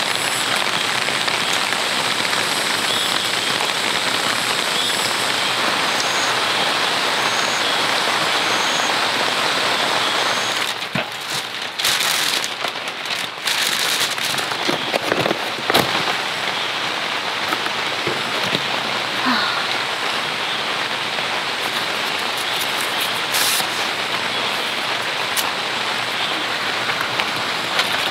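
Heavy rain falling steadily on a tent's fly and clear vinyl window. About ten seconds in the sound shifts briefly, with a few sharp taps and clicks, and then the steady rain goes on.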